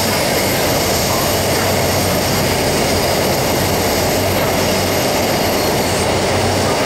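Cabin noise inside a CSR Puzhen/Alstom Metropolis AC08 metro car running at a steady speed: a loud, even rumble of the train under way, with a faint low hum underneath.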